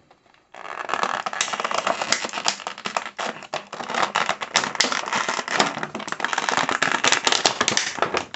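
Clear plastic blister tray crackling and crinkling as an action figure is worked out of it by hand. It is a dense run of small crackles and clicks, starting about half a second in.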